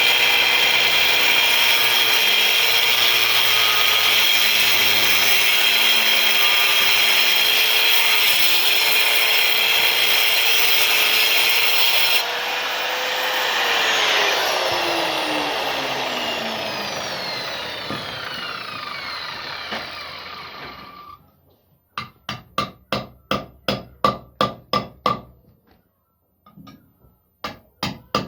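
A power tool cutting wood runs steadily, then is switched off and winds down with a falling whine. Near the end come rapid hammer blows, about four a second, with a short pause between two runs.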